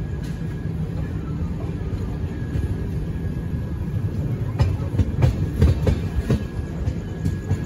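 Passenger train running, heard from on board: a steady low rumble, with a quick run of sharp wheel clacks over the rail joints about five to six and a half seconds in.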